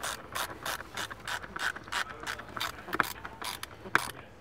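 Hand ratchet clicking in quick, even strokes, about four or five clicks a second, as it runs in a bolt holding up the blower motor assembly; the clicking stops near the end.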